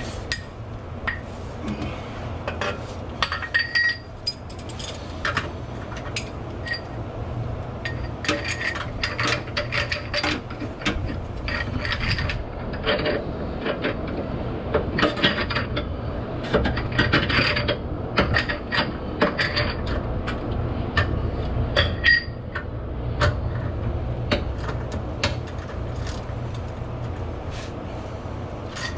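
Hand tools on the differential's bolts: a 19 mm socket wrench and metal tools clicking and clinking in irregular clusters, over a low steady hum.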